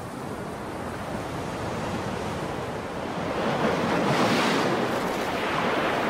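Ocean surf washing on the shore, a wave swelling to its loudest about four seconds in, then easing slightly.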